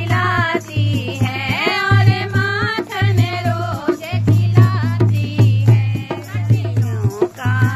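Indian folk song: a voice singing a gliding melody over a steady beat of drums.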